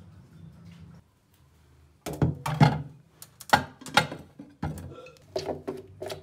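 Glass baking dishes and a glass pot clinking and knocking against each other and a stainless steel sink as they are handled for washing, a string of sharp strikes with short ringing starting about two seconds in.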